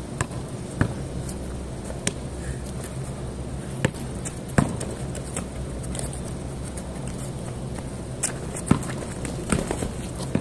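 A basketball bouncing and players' footsteps on a concrete court: scattered sharp thuds at uneven intervals over a steady low hum.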